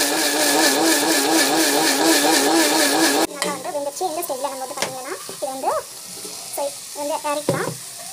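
Kitchen mixer grinder running steadily, grinding chutney to a paste, then cutting off suddenly about three seconds in. After that, vegetables sizzle as they fry in a pan and are stirred with a spatula, with a voice heard over them.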